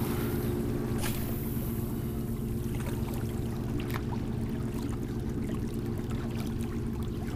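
Steady low drone of a boat engine running out on the water, holding one pitch throughout. A sharp tick comes about a second in, with a few fainter ticks later.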